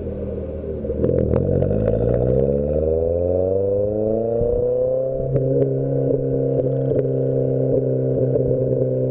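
Toyota Glanza V's turbocharged 1.3-litre four-cylinder engine, muffler deleted, revving up over about four seconds and then held steady at high revs, with a scatter of sharp cracks.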